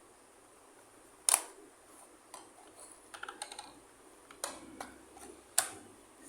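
Small plastic toy pieces and packaging being handled and set down: scattered sharp clicks and taps, with a quick flurry in the middle and the loudest click near the end.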